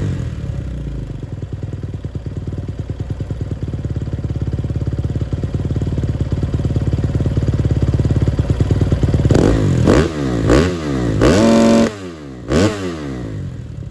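2018 Kawasaki KX250F single-cylinder four-stroke dirt-bike engine, fitted with a Yoshimura RS-4 slip-on exhaust, idling for several seconds. Near the end it is blipped three times, with one rev held briefly at high rpm, and then drops back to idle.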